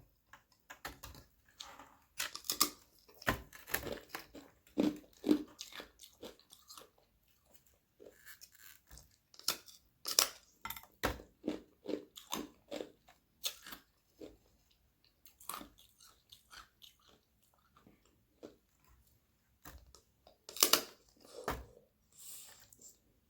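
Thin sheets of frozen carbonated water being bitten and chewed close to the microphone: irregular crisp crunches and crackles, with a loud cluster of crunches about 21 seconds in.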